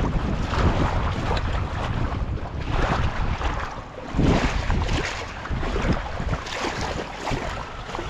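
Wind buffeting the microphone in uneven gusts, with a deep rumbling and a few louder surges.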